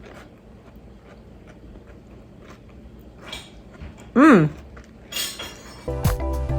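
Small clicks and taps of snack food being handled and eaten, with a short voiced 'mm'-like sound about four seconds in. Background guitar music starts near the end.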